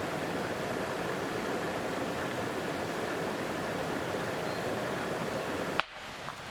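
Steady rushing noise, like flowing water, cut off by a sharp click near the end, after which the background is quieter.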